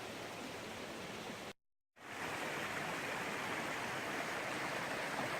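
Steady outdoor rushing noise. It cuts out completely for about half a second roughly a second and a half in, at an edit cut, then comes back slightly louder.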